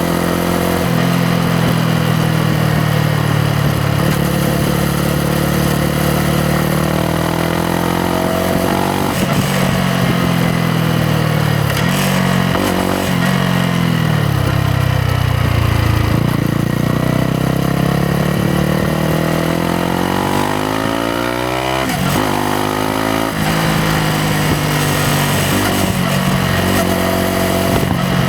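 Yamaha MT-125's single-cylinder four-stroke engine running under way, its exhaust note rising and falling with the throttle. The pitch sinks to a low point near the middle, climbs steadily, drops suddenly about three quarters through at an upshift, then holds steady.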